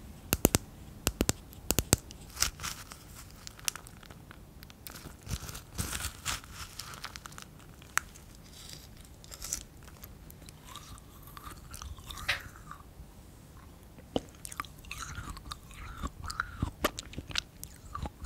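Dippin' Dots beaded ice cream chewed close to the microphone, the small frozen beads crunching and crackling between the teeth. A quick run of sharp clicks comes in the first two seconds, then scattered crisp crunches.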